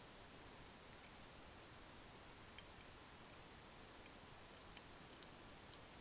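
Near silence broken by a scattered series of faint, light clicks, the sharpest pair about two and a half seconds in: fingers handling a painted brass belt buckle as it is turned over.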